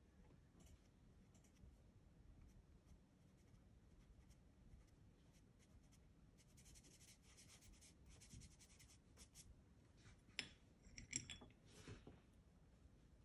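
Faint scratching of a soft pastel stick rubbed across textured pastel paper, thickest past the middle, then a few sharp clicks near the end as pastel pieces knock against a china plate.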